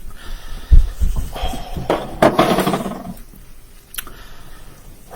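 A man's breathy exhales and a short pitched groan, reacting to the burn of a very hot chili extract tincture he has just tasted. A low thump comes about three-quarters of a second in.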